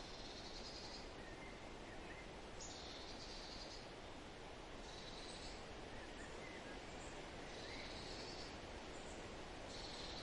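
Forest ambience: a steady soft hiss of wind in the trees, with a bird repeating a high trilled phrase of about a second, roughly every two and a half seconds, and a few fainter chirps between.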